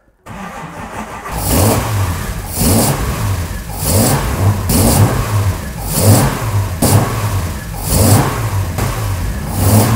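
Jaguar E-Type 4.2-litre straight-six, fuel-injected, on its first start after the Lucas fuel injection conversion. The starter turns it over briefly and it catches about a second in, then it is revved up and down in repeated throttle blips, about one a second.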